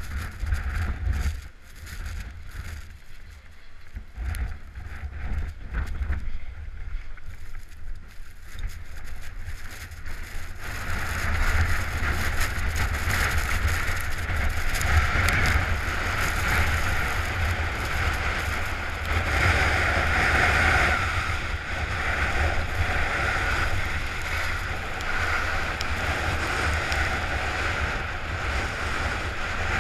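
Skis hissing over snow on a downhill run, with wind rumbling on the action-camera microphone. The first ten seconds are quieter and uneven; from about ten seconds in the hiss turns louder and steady.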